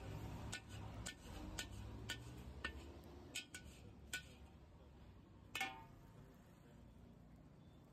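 A long metal spatula scraping and tapping against a large iron wok in a string of sharp clinks, then one louder ringing clang about five and a half seconds in as it is set down in the wok. A low rumble runs under the first few seconds.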